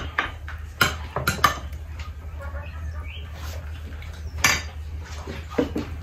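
Tableware clinking as food is served: a serving spoon and plates knocking against dishes, with sharp clinks about a second in and again near four and a half seconds, over a low steady hum.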